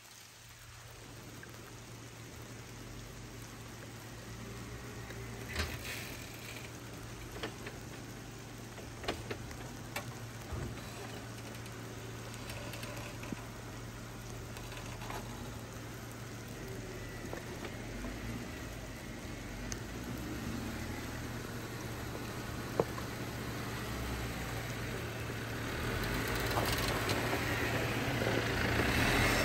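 Lifted Jeep creeping down a dirt slope in four-wheel low, its engine a low steady hum that grows louder as it comes closer, with dirt and small stones crackling and popping under the tyres now and then.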